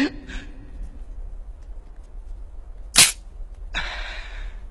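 A revolver's hammer snapping down on an empty chamber: one short, sharp click about three seconds in, with no shot following.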